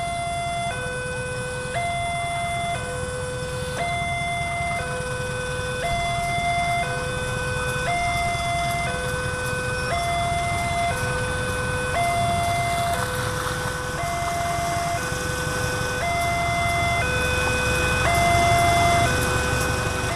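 Level-crossing warning alarm sounding a steady two-tone signal, alternating high and low about once a second. Beneath it a diesel-electric locomotive's engine rumbles, growing louder near the end as it approaches.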